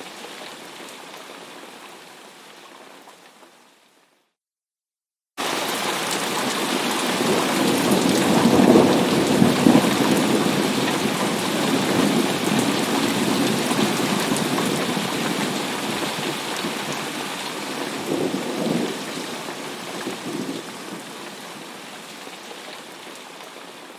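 Heavy rain with thunder. The rain fades out about four seconds in, and after a second of silence heavy rain cuts back in suddenly. A rumble of thunder swells a few seconds later, a smaller one comes near the end, and the rain then eases.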